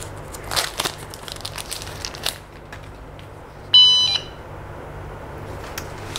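Plastic wrapper rustling and handling clicks on a small remote control, then a single short, high electronic beep nearly four seconds in as the Segway Ninebot Mini Plus remote is switched on.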